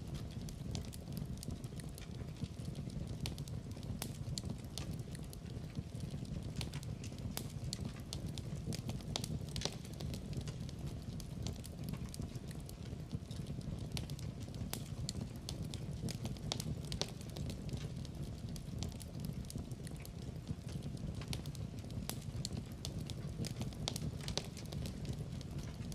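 Wood fire crackling, with frequent small sharp pops and snaps over a steady low rumble of the flames.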